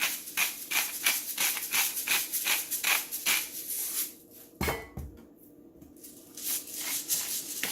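Smoked sea salt and pepper being shaken from shakers into batter, a rhythmic rattling of about four shakes a second. A single knock about four and a half seconds in, a short lull, then fainter shaking again near the end.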